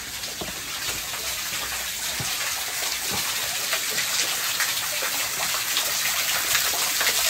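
Steady rushing water, a smooth hiss that grows slowly louder.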